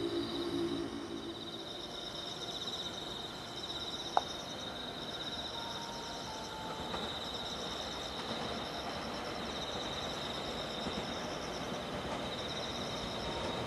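Night insects trilling steadily in pulsed, high-pitched phrases. A low hum fades out in the first second or two, and a single sharp click comes about four seconds in. A faint rumble from the approaching electric train grows toward the end.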